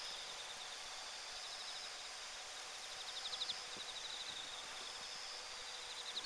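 Crickets singing: a steady high trill, with a faster run of pulsed chirps about halfway through and again at the end, over a steady hiss.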